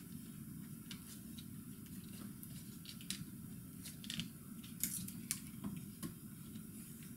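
Faint, irregular clicks and scratches of plastic-coated picture-hanging wire being twisted around itself by hand, over a low steady hum.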